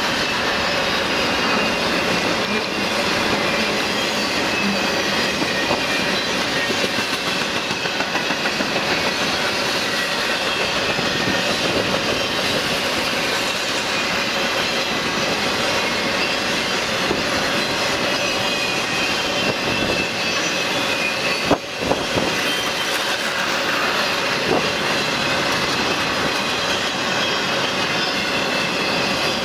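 Double-stack intermodal freight train rolling past: steady noise of steel wheels on rail and the cars running by, with a few faint high ringing tones. There is one sharp click about three-quarters of the way through.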